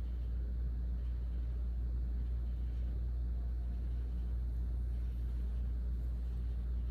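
Steady low hum of room tone in a classroom lab, with no clicks or strikes.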